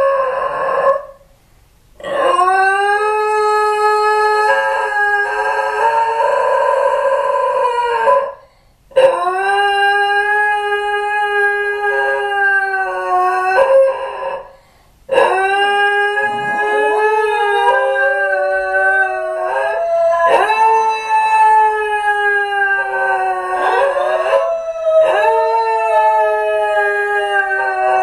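Two Basenji dogs howling together in long drawn-out howls, their two voices at different pitches overlapping and gliding across each other, with three short breaks. The howling is separation distress after their owner has left the home.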